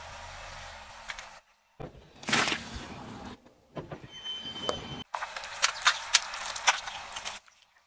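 Car tyre rolling slowly over soft and crunchy objects and crushing them, in several short takes with abrupt breaks between them. A loud burst of crushing about two seconds in, and a crackling, popping stretch with many sharp clicks in the second half as liquid-filled jelly gloves are squashed.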